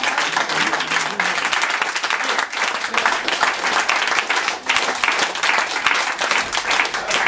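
Steady applause from the audience and the cast, many hands clapping at once, with a few voices mixed in.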